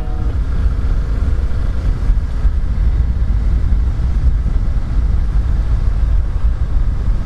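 Vehicle travelling along a road: a loud, steady low rumble that wavers in level throughout.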